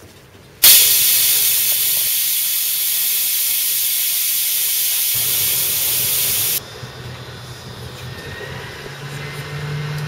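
Loud hiss of compressed air being let out, starting suddenly about half a second in and cutting off abruptly after about six seconds. A low steady hum follows, growing near the end.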